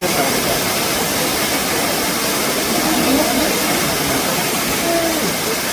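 Waterfall rushing: a steady, even roar of falling water, with faint voices in the background.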